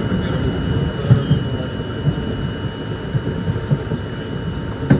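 New York City subway train running along the track, heard from inside the front car: a steady low rumble with irregular thumps from the wheels, a couple of light clicks, and a faint steady high tone.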